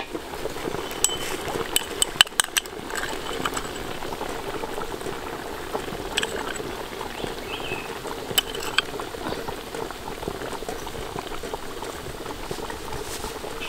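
Water boiling hard in a large aluminium pot, a steady dense bubbling. Sharp clicks and taps break through it, clustered about one to three seconds in, with a few more later.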